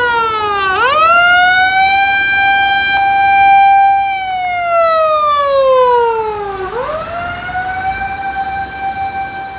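A fire-rescue truck's siren passing close by, wailing: one tone climbs quickly, holds high for about three seconds, then sinks slowly for a couple of seconds. It climbs again about seven seconds in and grows somewhat fainter in the last few seconds.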